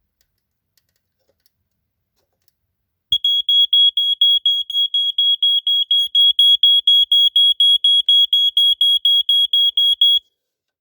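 A 1980s Dicon-built smoke alarm sounding its test alarm: a loud, shrill high-pitched beeping at about four beeps a second. It starts about three seconds in and stops shortly before the end.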